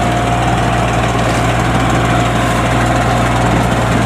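Farm tractor engine running steadily while hauling a loaded sled of rice sacks through a flooded field, with an even drone that holds level.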